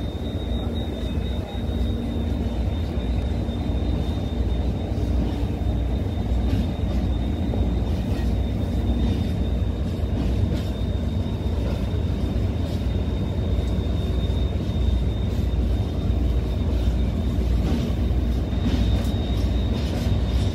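Container freight train reversing slowly: a steady low rumble of the wagons rolling, with a faint steady high whine and scattered light clicks in the second half.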